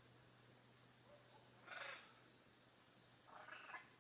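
Faint bird calls: several short, high falling chirps and two harsher, rasping calls about two and three and a half seconds in, over a steady high-pitched whine.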